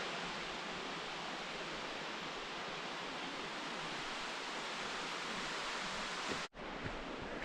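Steady rushing roar of a waterfall, falling water with no break in its texture, briefly cut off near the end and then resuming.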